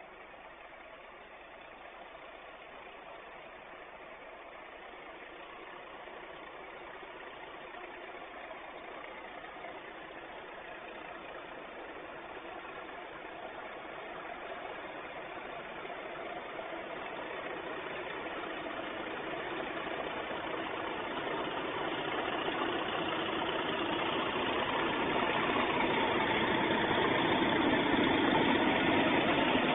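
Diesel locomotive engine growing steadily louder as it approaches, a steady multi-tone drone that is loudest near the end. It is Class 37 No. 37218's English Electric V12 diesel hauling the train.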